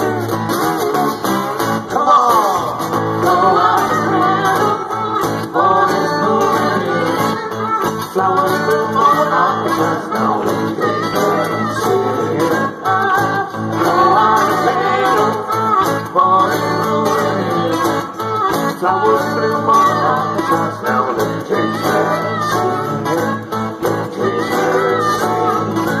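Live acoustic band: acoustic guitar accompanying several voices singing together.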